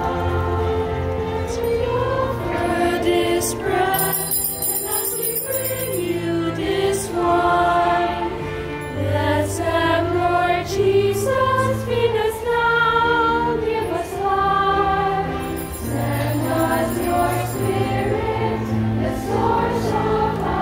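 A choir sings a slow hymn in held chords over a steady bass. Small bells ring in two bursts of about two seconds each, about four seconds in and again after sixteen seconds.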